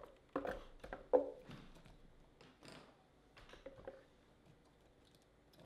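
Chunks of cauliflower core dropped by hand into a Vitamix 64-ounce low-profile blender container, making a few light knocks against the plastic jar. The loudest comes about a second in, with fainter taps later.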